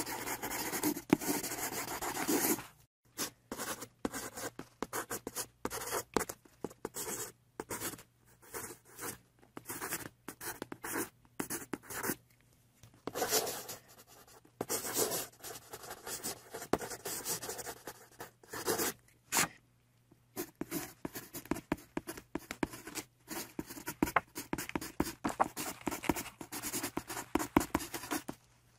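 Felt-tip marker scratching across paper in quick back-and-forth colouring strokes, coming in runs with a few short pauses between them.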